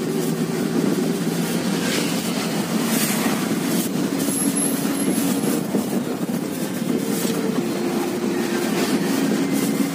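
Inside a moving car: a steady drone of engine and tyre noise, with a few brief rushes of noise from passing traffic or bumps in the road.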